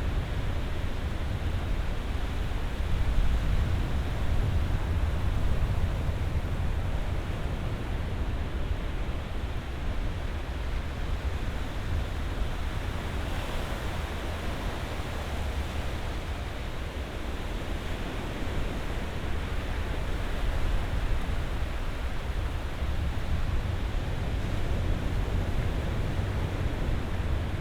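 Ocean surf: a steady wash of waves breaking on a shore, heavy in the low rumble, swelling a little a few times.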